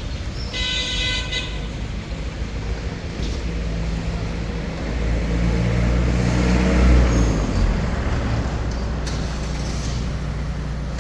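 A vehicle horn toots once, about a second long, near the start. Then a motor vehicle passes close by, its engine growing louder to a peak about seven seconds in and fading again, over steady traffic noise.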